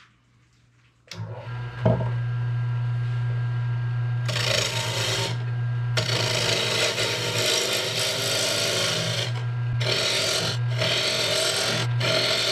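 Harbor Freight 10x18 benchtop mini wood lathe motor starting about a second in and running with a steady hum, while a turning tool cuts a tenon on a spinning teak bowl blank. The cutting is a loud scraping rasp that comes and goes in long stretches as the tool is pressed in and eased off.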